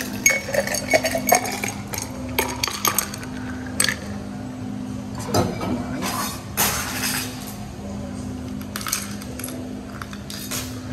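Ice cubes clinking and rattling against a metal cocktail shaker tin and a tall glass as a drink is poured, in several bursts of clinks, over a steady low hum.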